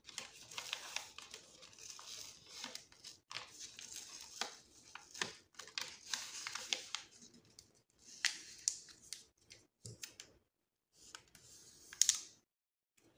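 Backing liner being peeled from an adhesive sheet, with papery rustling, crinkling and small clicks as the sheet is handled. The noise comes in stretches, thins out after about seven seconds, and ends with a short, sharper crinkle near the end.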